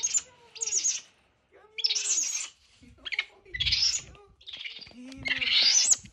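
Capuchin monkey giving a run of shrill, high-pitched squeaking calls in about seven short bursts, excited greeting calls.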